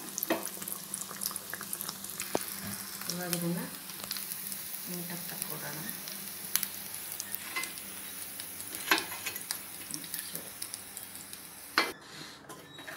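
A battered, potato-stuffed bread slice (bread pakoda) deep-frying in hot oil: a steady sizzling hiss with many scattered crackles and pops. The sizzling cuts off suddenly about a second before the end.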